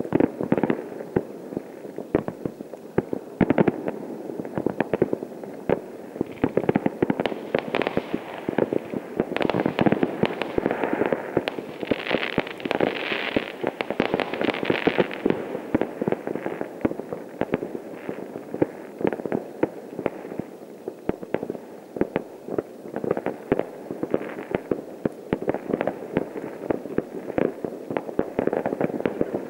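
Many fireworks and firecrackers going off at once: near-continuous pops and bangs, thickest around the middle.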